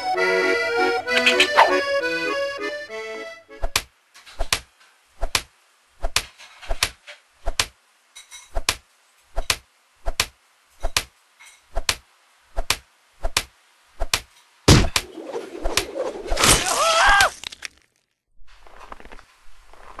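Accordion music for the first few seconds. Then a steady series of sharp thunks and cracks, about three every two seconds: cartoon sound effects of shells being pounded to tenderize them. Near the end comes a louder crack, followed by a couple of seconds of noisy clatter with a wavering pitched sound in it.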